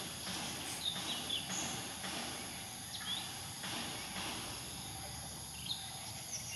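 Outdoor ambience of insects droning steadily, with a few short, high bird chirps scattered through.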